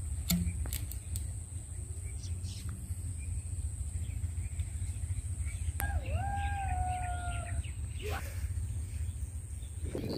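A rooster crows once, about six seconds in: a rising note held and falling slightly for about a second and a half, over a steady low rumble, with a few light clicks near the start.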